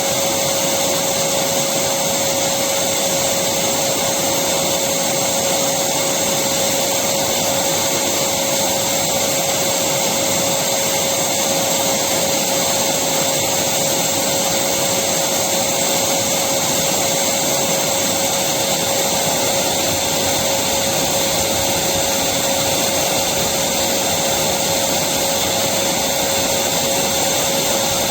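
Electric vacuum cleaner running continuously at an even pitch: a steady rushing hiss of air with a constant motor whine.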